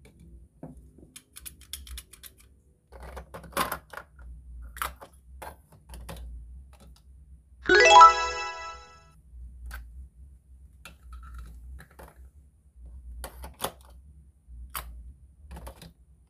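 Hard plastic toy pieces clicking and tapping as toy ice cream cones and scoops are handled and stacked, with one short bright chime about halfway through that rings for about a second and is the loudest sound.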